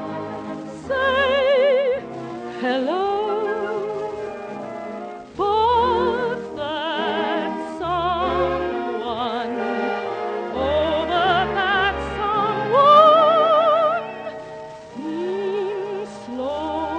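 Operatic music: a wordless melody with a wide vibrato, sliding up into held notes, over sustained accompaniment.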